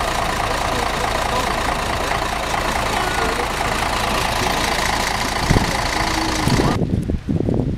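Coach bus's diesel engine idling, a steady running hum. About seven seconds in it cuts off abruptly and gives way to a few low thumps.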